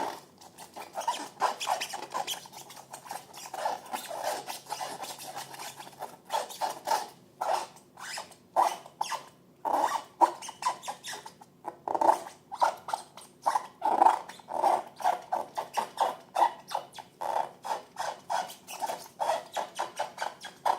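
Slime being stirred and squeezed: a continuous run of short, wet, sticky squelches and clicks, several a second.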